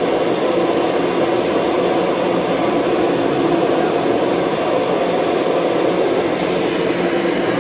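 Kirby Diamond Edition upright vacuum cleaner running steadily while vacuuming.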